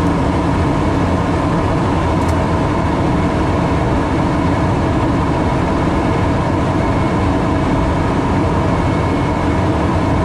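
Steady cockpit noise of an airliner descending on approach: a loud, constant rush with a low rumble and a few faint steady tones.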